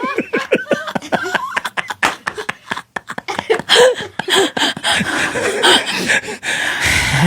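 Laughter: a long run of quick, short bursts of laughing.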